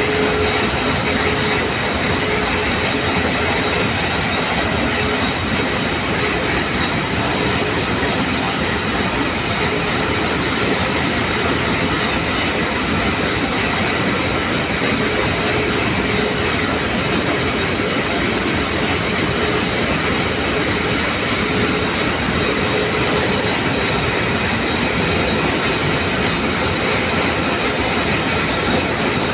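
Textile mill machinery, warp knitting machines, running with a steady, dense mechanical clatter.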